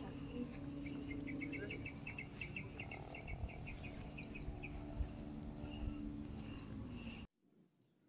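Outdoor ambience by a pond at dusk: insects chirping, with a quick run of high chirps, about six or seven a second, from about one second in, over a steady low hum. The sound cuts off abruptly about seven seconds in, leaving near silence.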